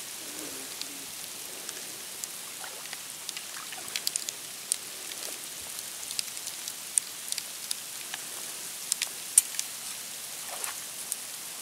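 Water dripping and small splashes, irregular sharp drips over a steady hiss, as a trap is worked into a beaver channel in a pond.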